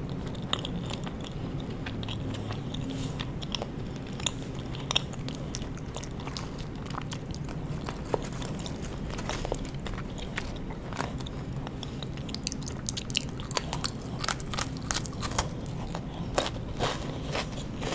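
Close-miked chewing and crunching of strawberry Pocky biscuit sticks, with sharp, crisp snaps that come thicker in the second half.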